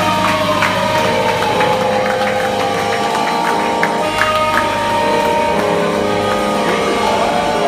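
A live rock band playing loud amplified music through a club PA. A low held note sits under steady sustained tones, and a long sliding tone falls in pitch at the start.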